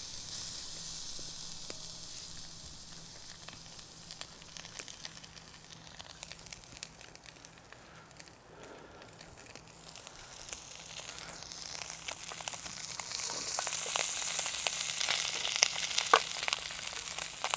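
Whole seasoned brown trout sizzling in hot olive oil in a cast-iron skillet, with many small pops and spits. The sizzle eases a little midway, then grows louder through the second half.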